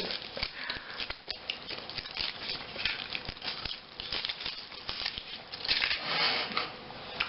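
Small irregular clicks and rustling as Kinder Surprise eggs are handled: foil wrappers crinkling and plastic toy capsules being fiddled with, with a louder rustle about six seconds in.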